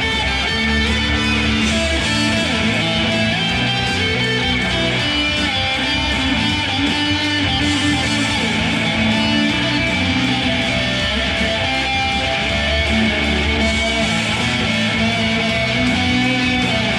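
Electric guitar played through an amplifier, loud chords held and changed every second or two without a break.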